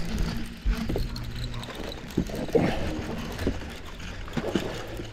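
Rod-and-reel handling noise as a bass is reeled in on a baitcasting reel: scattered short knocks and rubs over a steady low hum.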